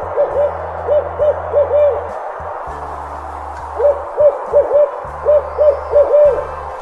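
An owl hooting in two runs of quick, short hoots, several a second, with a pause of about two seconds between the runs, over a steady hiss.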